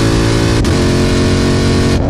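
2020 Shelby GT500's supercharged 5.2-litre V8 accelerating hard through its modified X-pipe exhaust, loud, its pitch climbing. A quick upshift about half a second in drops the pitch for a moment before it climbs again.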